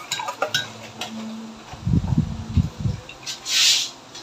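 Canned pineapple tidbits tipped out of the tin into a stainless mesh strainer over a metal bowl: light metal clinks of the can against the strainer, a few dull low thuds about two seconds in as the fruit drops out, then a short rushing splash of juice near the end.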